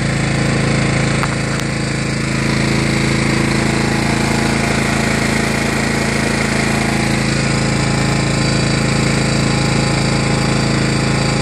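Kohler Command CV12.5 single-cylinder engine of a John Deere LA105 lawn tractor running at a steady speed.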